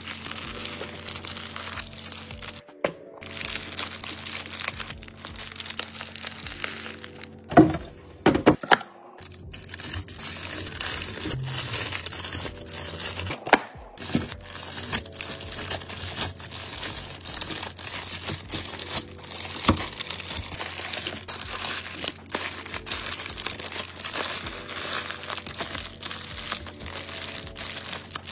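Cellophane wrappers on pastries and snack bars crinkling as they are handled and laid in a clear plastic organizer, with a few sharper knocks, the loudest about a quarter of the way in.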